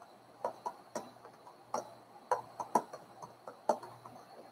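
Typing on a computer keyboard: about a dozen short, irregularly spaced key clicks.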